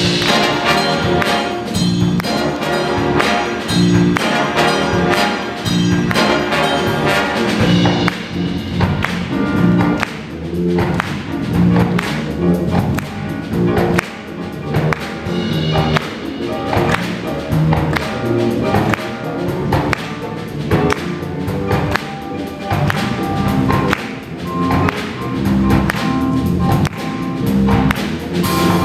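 Live big band playing an up-tempo funk tune: a horn section of saxophones, trumpets and trombones over drum kit, congas, electric bass and keyboard, with a steady, even beat.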